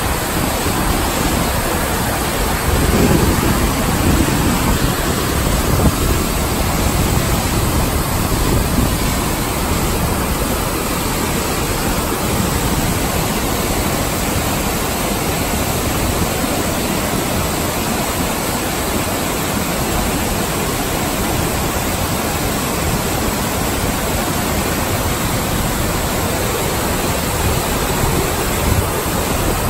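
Steady loud rush of a big waterfall pouring over rock close at hand.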